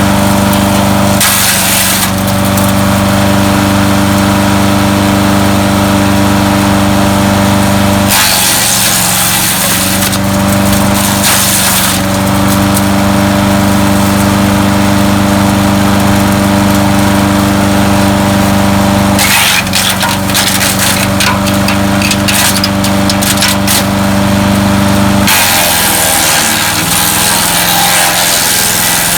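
Landworks 7 hp chipper shredder's engine running steadily, with four stretches of crackling and grinding as material is fed through and chipped. The longest comes near the end, and the engine's pitch sags under the load.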